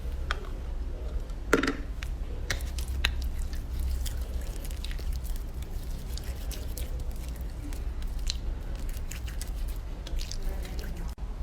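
Slime being squeezed and pressed by hand, giving a string of small wet clicks and pops over a steady low rumble.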